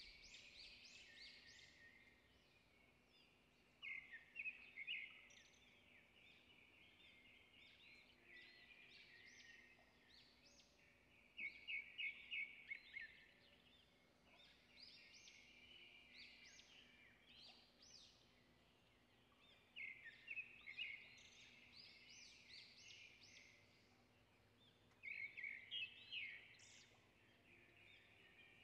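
Faint bird chirping and twittering, with bursts of quick, high, repeated chirps every several seconds.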